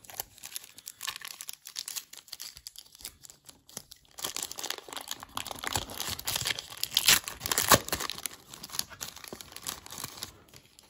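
Plastic wrapper of a 1991 Score football card pack being torn open and crumpled, a crackling crinkle that grows thicker and louder about four seconds in.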